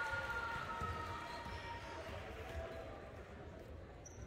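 A basketball being dribbled on a gym court, a series of dull bounces, under general gym noise. A steady held tone sounds over it at the start and fades out within the first couple of seconds.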